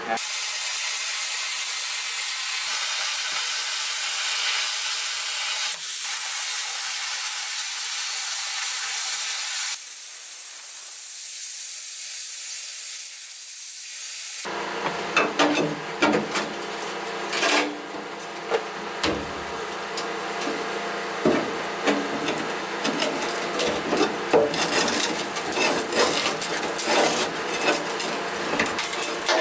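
Plasma cutter cutting rusted sheet steel: a steady loud hiss for about the first half, then a rougher sound with a low hum and many sharp crackles and clicks.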